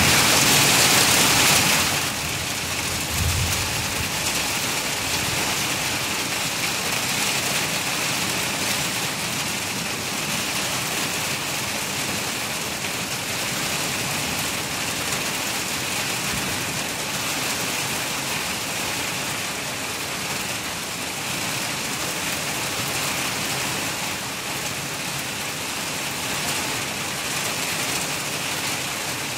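Heavy rain falling, a steady hiss that is louder for the first two seconds and then holds even, with a brief low thump about three seconds in.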